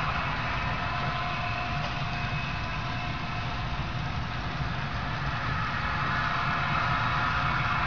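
Model double-stack container train running steadily across the layout: an even mechanical rumble with a faint steady whine.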